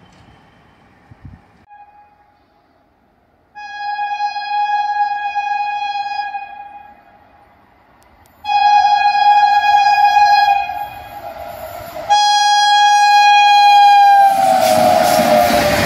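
Indian Railways WAP-7 electric locomotive's horn sounding three long blasts as it approaches. The last blast drops in pitch as the locomotive passes close by, and the rumble of the train and its coaches follows.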